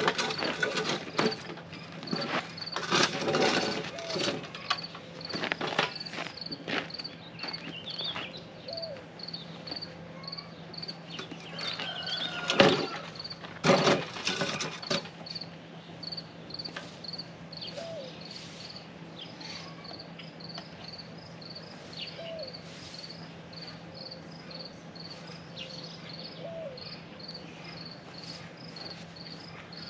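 Insect chirping steadily at about two chirps a second over a low steady hum. Clattering knocks of equipment being handled in the first few seconds, and a louder knock or two about twelve to fourteen seconds in.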